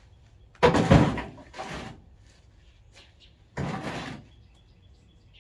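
Aluminum gooseneck adapter hitch clunking against a bare steel pickup bed as it is set in: a loud metal clunk about half a second in, a smaller knock just after, and another clunk near four seconds in.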